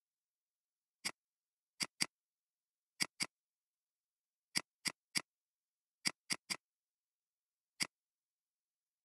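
Computer mouse clicking: about a dozen short, sharp clicks at uneven intervals, several in quick pairs or threes, with silence between them.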